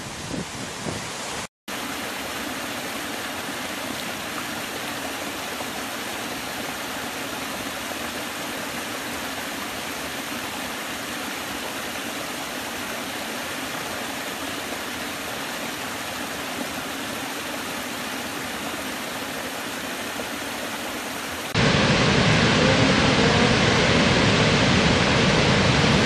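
Falling water from a series of waterfall shots: a brief rush with wind on the microphone, a cut to silence about a second and a half in, then the steady hiss of a small forest cascade over mossy rocks. About 21 seconds in it switches to the louder, fuller rush of a large waterfall.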